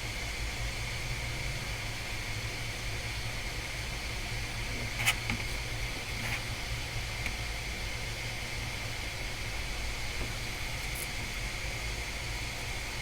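Steady low electrical hum and hiss of background noise at a repair bench, with one sharp click about five seconds in and a couple of fainter ticks later.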